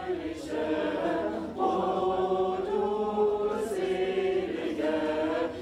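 A choir singing slowly in long held notes, the chords changing every second or so.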